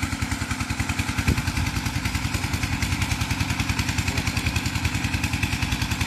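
A small engine idling steadily with an even, fast pulsing beat.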